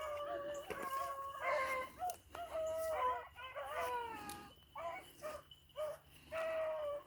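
A pack of beagles baying as they run a rabbit's track: several hound voices, long bawls mixed with short yelps, often overlapping.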